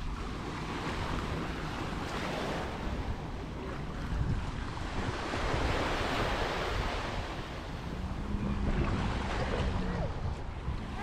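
Surf breaking and washing up on a sandy beach, swelling and ebbing every few seconds, with wind buffeting the microphone.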